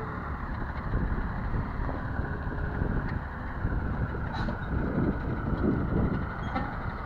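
Heavy 6x6 military truck engine running steadily at idle, mixed with wind buffeting the microphone.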